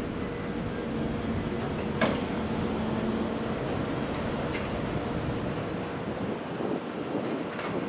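Freight train running with a steady rumble and a faint even hum, with a sharp knock about two seconds in and a fainter one a little later.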